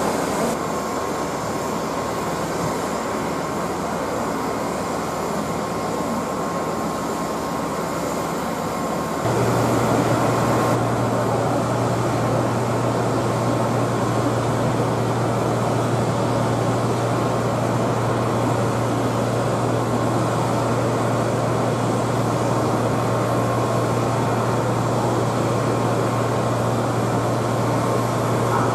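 Light single-engine propeller aircraft on its takeoff run. About a third of the way in its engine and propeller noise steps up to a steady low drone as full power is applied, and it holds there. A thin steady whine sits under it throughout.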